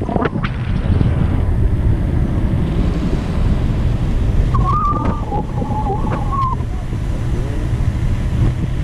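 Wind buffeting the microphone in flight under a tandem paraglider, a steady low rumble. About halfway through, a thin wavering high tone sounds for about two seconds.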